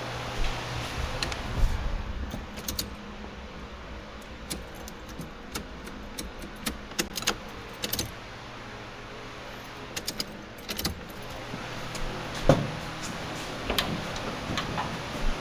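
Scattered small metallic clicks, clinks and light knocks from hands working on a car's engine wiring and tools, with one louder knock about twelve seconds in.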